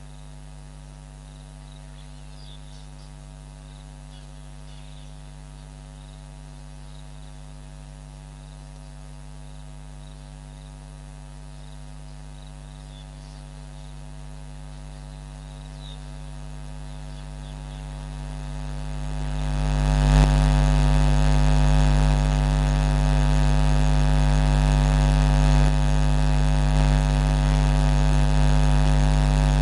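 Steady electrical mains hum with many harmonics and no change in pitch. It swells from about halfway through, jumps sharply louder about two-thirds of the way in, then holds loud and steady.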